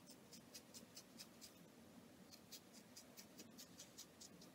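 Scissors snipping through synthetic wig hair: a run of faint, quick snips about four a second, with a short pause about two seconds in.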